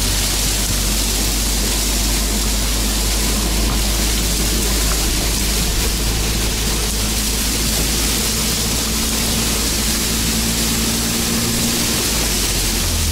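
ATV engine running steadily as the quad pushes through tall dry reeds, the stems brushing and scraping against the machine in a constant loud rustling hiss.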